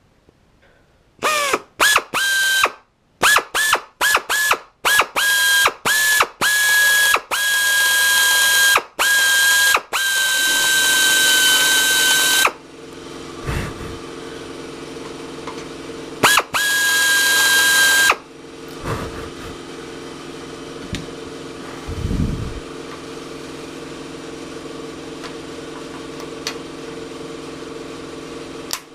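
A drill run in a series of short trigger pulls, each spinning up to a steady whine, about a dozen in the first twelve seconds and one longer run later. It is drilling out rivets in aluminium aircraft structure with a number 40 bit. A steady low machine hum starts partway through and continues.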